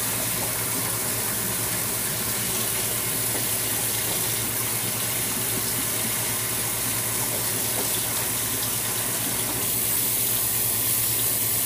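Tap water running steadily into a sink, as a plate is washed.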